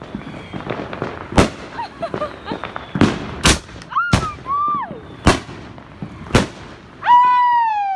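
Fireworks and firecrackers going off: about six sharp bangs a second or so apart, with short rising-and-falling tones between them and a long falling tone near the end.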